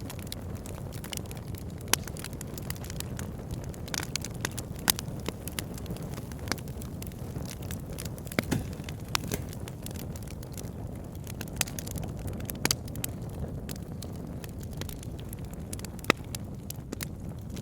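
Wood fire burning in a fireplace: a steady low rumble of flames with sharp, irregular crackles and pops of the burning logs.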